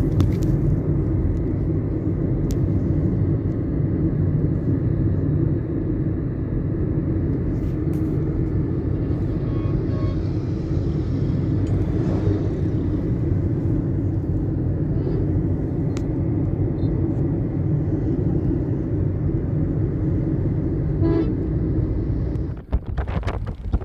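Steady low rumble of a running motor vehicle. Near the end it gives way to choppy, gusty wind noise on the microphone.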